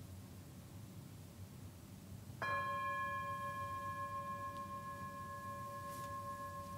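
A small chime struck once about two and a half seconds in, ringing on with a clear steady tone and several overtones and slowly fading; it marks the end of a time of silent prayer. Before the strike there is only faint room tone.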